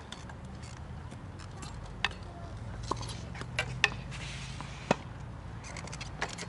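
Tennis ball struck by rackets and bouncing on a hard court during a rally: a string of sharp pocks at uneven intervals, the loudest two close together near the middle.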